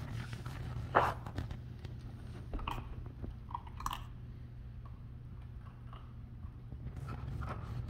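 A puppy crunching dry kibble from a bowl: irregular crunches and clicks, loudest about a second in, thinning out in the middle and picking up again near the end.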